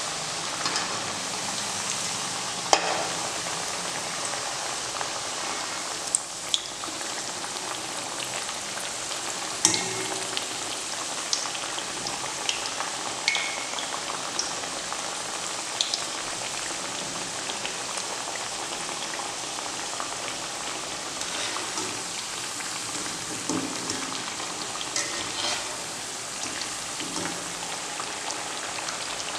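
Rice flour vadas deep-frying in hot oil in a steel kadai: a steady sizzle with a scattering of sharp clicks.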